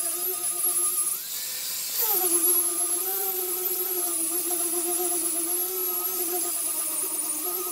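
Electric angle grinder fitted with a sanding pad, running under load as it sands pallet-wood slats; a steady whine. About a second in the pitch rises as the load eases, then drops back with a louder scraping burst as the pad presses into the wood again.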